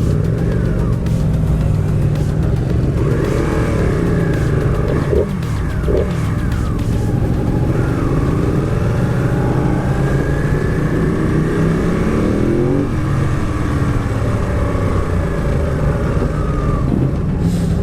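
Motorcycle engine heard from on the bike under steady wind rush, its pitch rising and falling as it accelerates and eases off through the gears.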